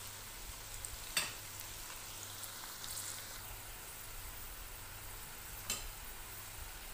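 Battered okra fritters (bhindi pakoras) deep-frying in hot oil in a kadai: a steady sizzling hiss, with two sharp clicks, one about a second in and one near the end.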